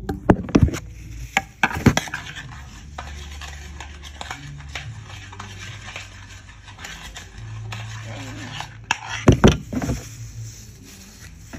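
Metal spoon stirring honey and sugar in a ceramic bowl: scattered clinks and knocks of the spoon against the bowl, clustered near the start and again about nine seconds in, over a low steady hum.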